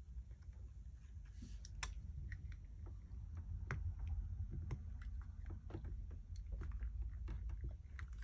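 Small clicks and taps of plastic parts as a cordless hair clipper is handled and its new motor worked into the housing, with one sharper click about two seconds in.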